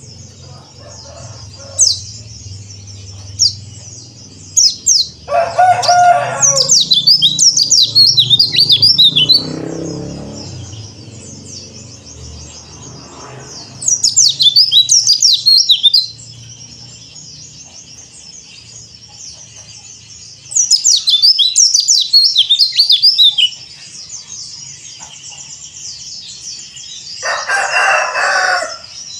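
Yellow-breasted white-eye (pleci) singing: a few single high chirps, then three long bursts of rapid high twittering over a steady background chatter of more birds. A lower, rougher call cuts in twice, near the start of the first burst and near the end.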